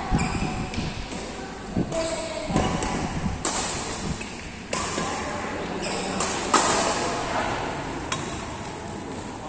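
Badminton rally: rackets striking a shuttlecock, with about eight sharp hits at uneven intervals.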